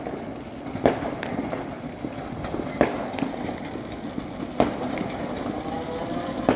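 Fireworks exploding in the distance: four sharp bangs about two seconds apart, with smaller cracks between them, over a constant background crackle of other fireworks.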